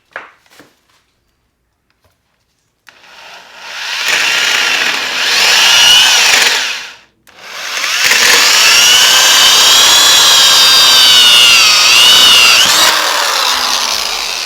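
Power drill running a hole saw through a plastic barrel bung cap, in two runs with a short stop between, its whine rising and falling as the saw loads up in the plastic.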